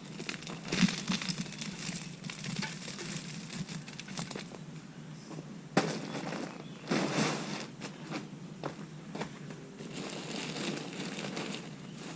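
Mulch being scooped and spread by hand, with irregular crunching and rustling and a sharp knock about six seconds in.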